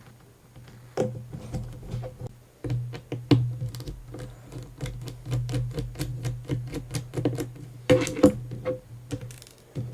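Rapid small clicks and ticks of a 00 Phillips screwdriver taking the tiny screws out of a Samsung Galaxy S4's back frame, over a steady low hum.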